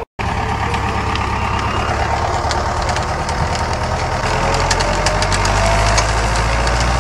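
Tractor engine running steadily under load while it drives a wheel-rim winch through a shaft. Its pitch rises slowly over the second half.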